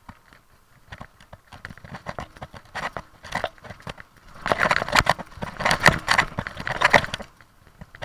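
Mountain bike clattering and rattling as it rides down a bumpy leaf-covered forest trail. The rattle is sparse at first, turns dense and loud from about halfway through, then eases near the end.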